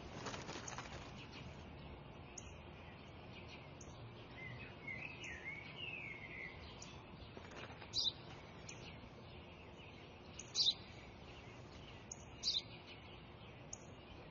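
Sparrow chirping over a low, steady outdoor background: a short warbling run of song a few seconds in, then three single sharp chirps about two seconds apart.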